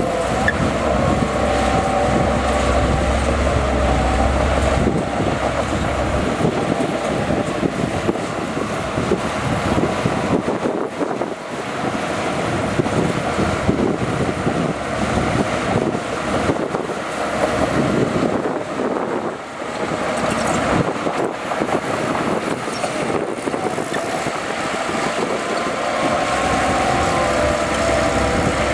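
Bulldozer's diesel engine running hard while it pushes dirt, a continuous mechanical din. A deep low rumble underneath fades out about five seconds in.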